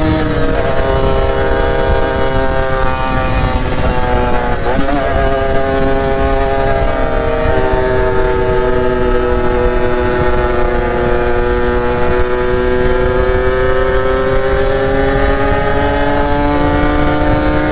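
Yamaha RX-King two-stroke motorcycle engine running on the move, with wind noise on the microphone. Its pitch drops at a gear change near the start and again around four seconds in, sags slowly through the middle, then climbs again near the end.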